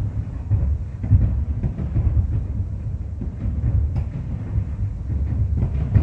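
Aerial fireworks bursting in rapid succession, heard at a distance as a continuous rumble of overlapping low booms. Sharper bangs stand out about a second in, near four seconds and near the end.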